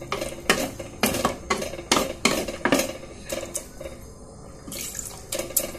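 Wooden spatula stirring squid pieces in an earthenware clay pot, knocking and scraping against the pot's sides in sharp knocks about twice a second, with a short lull before a few more near the end.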